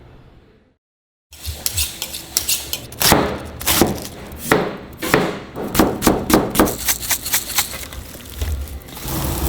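Metal kitchen utensils clattering: a run of sharp, irregular clinks and knocks against pans and dishes, about two a second at their busiest. A steady hiss sets in near the end.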